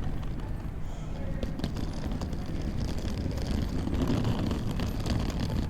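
Quiet airport terminal ambience: a steady low rumble of the building with scattered small clicks and knocks.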